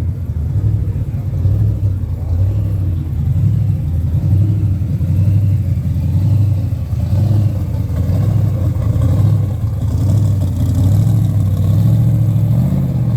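A car engine running with a steady, loud low rumble.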